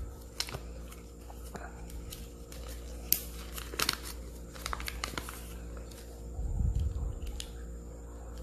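Kinder Joy packaging being handled and unwrapped: scattered short crinkles and tearing crackles, busiest in the middle, with a low bump of handling about six and a half seconds in.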